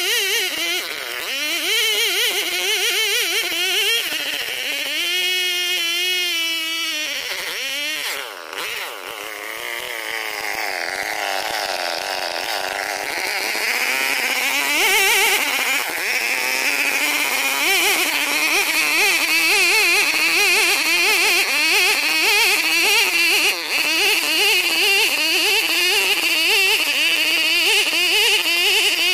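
A Chinese-made copy of a Stihl 070 two-stroke chainsaw ripping a log of ulin (Borneo ironwood) lengthwise into boards. It runs hard under load, its pitch wavering as the bar is pushed along the cut. About five seconds in the note drops and steadies for a few seconds, dips near eight seconds, then climbs back to full cutting speed.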